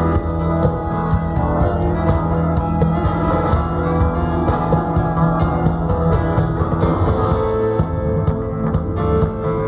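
Live rock band playing an instrumental passage between verses: guitars and bass over a steady drum beat, recorded on a phone with a thin, distant sound.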